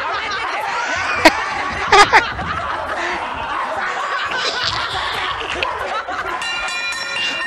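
People laughing hard: studio-audience laughter mixed with a man's laughter. There are sharp smacks about a second in and again around two seconds in. Near the end, a held musical sting of several steady tones comes in.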